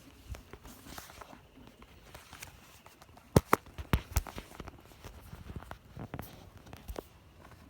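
Scattered light clicks and knocks, with a quick run of four or five sharp knocks about three and a half seconds in.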